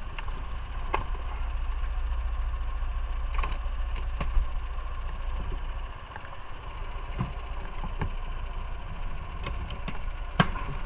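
Motorcycle engine idling with a steady low rumble that drops off about six seconds in. A few sharp clicks come through, the loudest shortly before the end.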